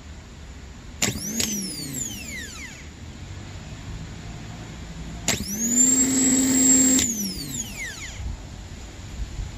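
Gear-reduction starter motor from a 2006 Pontiac GTO 6.0L LS2, spinning free on the bench under power after its brushes and commutator were cleaned. It gives a short whining burst about a second in that winds down, then a longer run of close to two seconds starting about five seconds in, holding a steady high whine before power is cut and it whines down to a stop.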